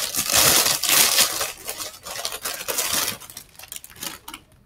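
Clear plastic bag crinkling and rustling as hands work it open to pull out a plush toy; loud for the first three seconds or so, then dying away about four seconds in.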